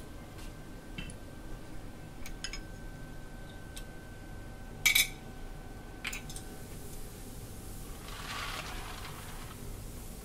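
Handling noises at an enamel milling drum: scattered metallic clinks and knocks, with one sharp clank about halfway through. A softer rustling scrape comes near the end as a plastic bucket is held under the drum's outlet. A faint steady hum runs underneath.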